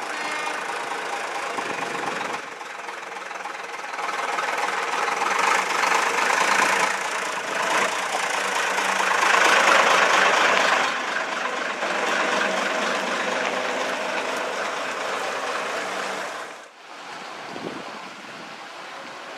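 Diesel engine of an AEC Routemaster RML double-decker bus running as the bus drives past close by, growing loudest about halfway through. Near the end the sound cuts to a quieter engine of a vintage single-deck bus pulling away.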